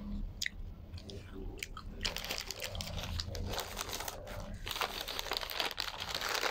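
Mouth sounds of chewing food for the first couple of seconds. Then paper and foil wrapping crinkles and rustles as a shawarma is unwrapped, getting louder about three-quarters of the way through.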